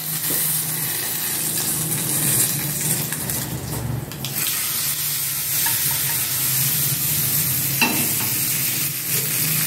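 Hot-oil tadka of curry leaves and red chilli powder sizzling in a small aluminium pan, then sizzling on as it is poured over the kadhi about four seconds in. A steady low hum runs underneath, and there is a single click near the end.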